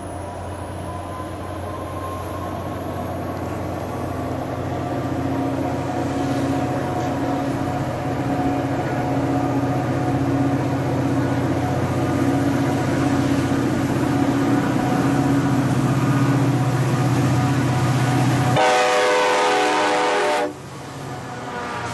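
MBTA MP36PH-3C diesel locomotive approaching, its engine drone growing steadily louder. Near the end it sounds a loud horn blast as it passes close, which cuts off suddenly.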